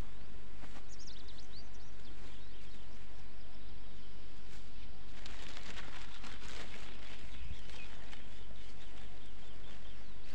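Steady outdoor background noise with a bird chirping briefly about a second in. Around the middle a plastic bag crinkles for a couple of seconds while dry bait flour is handled.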